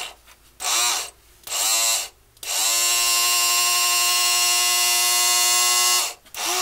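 Small electric gearmotor of a motorized Walthers bascule bridge, whining. It gives two short spin-ups that wind down again, then a steady high whine from about two and a half seconds in, which cuts out briefly near the end before starting again.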